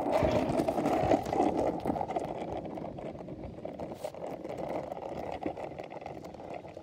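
Longboard's urethane wheels rolling over asphalt: a steady rumble that grows gradually quieter.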